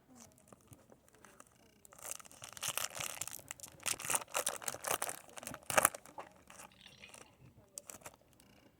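Foil trading-card booster pack being torn open and its wrapper crinkled. A dense run of crackling from about two seconds in to about six seconds, followed by a few light clicks and rustles.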